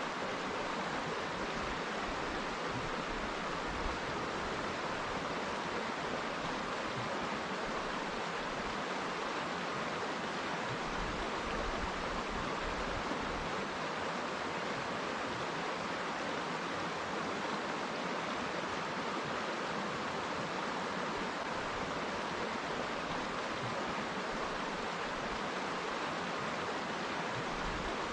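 River water flowing steadily, an even rushing noise with no pauses or changes.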